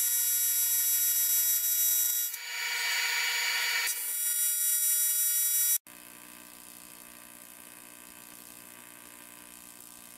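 AC TIG welding arc on aluminum buzzing steadily, with a harsher hiss joining it for about a second and a half in the middle. A little before 6 s it cuts off suddenly, and a second, much quieter and lower arc buzz follows.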